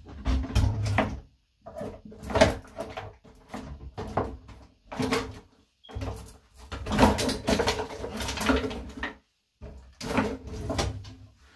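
Hands working a wet avocado hair mask through hair close to the microphone: irregular rustling and rubbing bursts with dull low bumps, pausing briefly between strokes.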